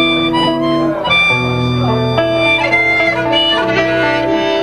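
Harmonica playing a run of held notes over guitar and acoustic bass accompaniment.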